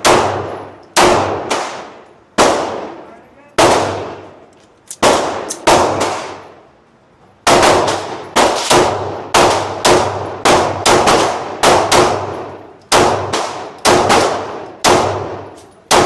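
Gunshots at a shooting range, about twenty in all, each sharp crack followed by a long echoing decay. At first they come singly, a second or so apart. After a short pause near the middle comes a faster string of two or three shots a second.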